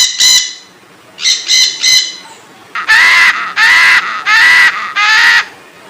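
Parrot calling in three runs: three short calls, then three more, then four longer drawn-out calls.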